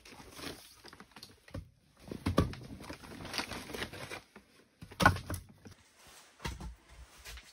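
Split firewood logs being handled and stacked on the floor, knocking together irregularly, with one sharp wooden knock about five seconds in.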